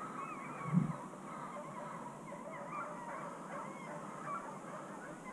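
Distant chorus of many overlapping animal calls, going on without a break, with one low thump about a second in.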